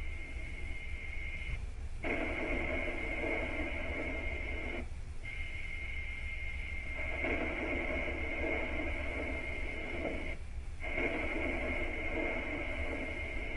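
Steady electronic hum and static with a high steady tone. A lower droning layer swells in and out, and all but the low hum cuts out briefly three times.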